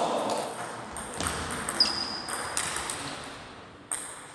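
Plastic table tennis balls tapping on tables and the floor in a large hall: a handful of separate sharp clicks, with a brief high squeak about two seconds in.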